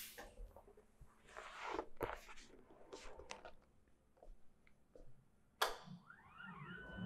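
Faint crinkling and rustling of a large sheet of pre-cut flexo mounting tape on its liner being handled and unfurled, with scattered clicks and one sharper click about five and a half seconds in. A faint whine rises and falls near the end.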